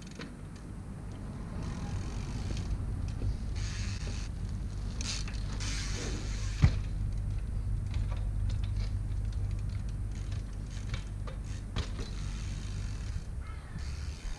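Trials bike being hopped up a stepped stone wall: creaking and scattered sharp clicks from the bike, with one loud sharp knock a little past halfway as a wheel lands on a step.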